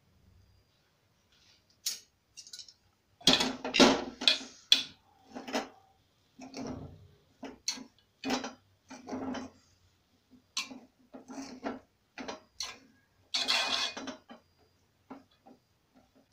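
Metal spoon scraping and knocking against an aluminium cooking pot while cooked rice is fluffed and stirred, in a series of short strokes, loudest about three to four seconds in and again near the end.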